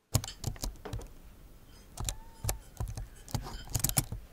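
Metal knife and fork clinking and scraping against a plate in a run of sharp clicks while cutting a doughnut.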